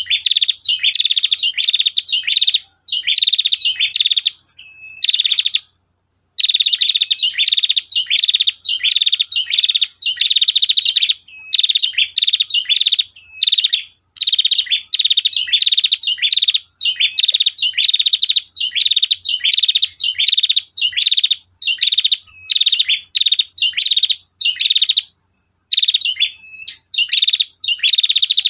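Female prinia (prenjak) giving long rasping 'tir' calls over and over in quick bursts with short gaps, pausing briefly a few times.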